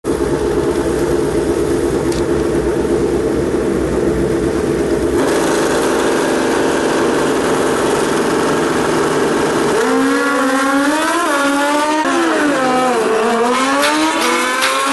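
Two drag-racing sport motorcycles running steadily on the start line, then launching about ten seconds in and accelerating hard. The engine pitch climbs, drops back at each gear shift and climbs again, several times.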